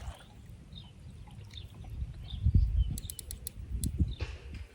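Outdoor lakeside sound: a low rumble, small birds chirping now and then, and a quick run of about six sharp clicks about three seconds in, followed by a short swish.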